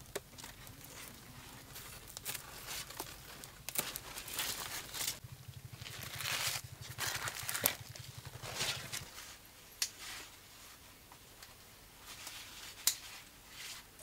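Melon vines and leaves rustling and crinkling as they are handled and cut, with irregular scratchy bursts and a few sharp clicks, two of them standing out in the second half.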